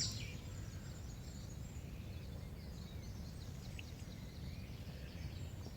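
Outdoor dawn ambience: a steady low rumble with faint, scattered birdsong; a loud, rapid run of repeated bird notes breaks off right at the start.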